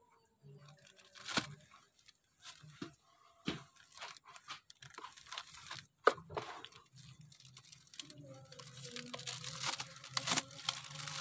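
Thin plastic bags crinkling and rustling in irregular short bursts as hands pack cassava bait dough into them.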